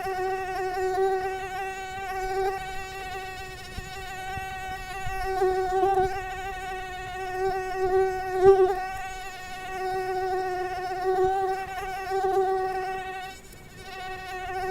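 Mosquito wing whine: one steady high hum with many overtones, swelling and fading as the insect moves closer and farther, briefly dropping away about 13 seconds in.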